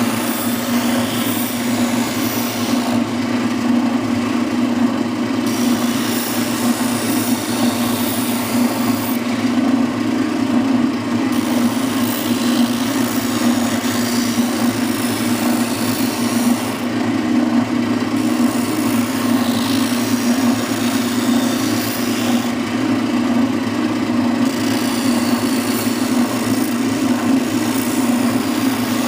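Oscillating spindle sander running with a steady hum while the edge of a wood panel is fed against the sanding drum, the hiss of sanding wood broken by four short pauses between passes.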